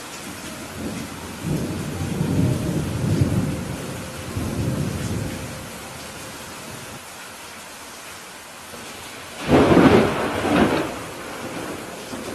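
Steady rain hissing throughout a thunderstorm. A low roll of thunder rumbles for a few seconds starting about a second and a half in, and a louder, sharper thunderclap breaks about three-quarters of the way through.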